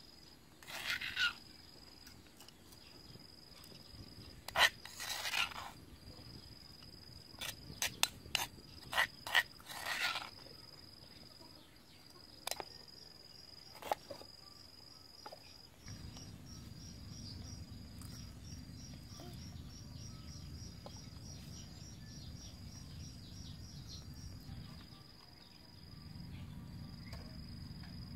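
Insects chirping in a steady high trill, broken now and then, with scrapes and clatters of food preparation in the first half: a metal spoon scraping pounded peanut paste out of a stone mortar, then a few sharp knife chops on a wooden board as a lime is cut. From about sixteen seconds in a steady low rumble joins.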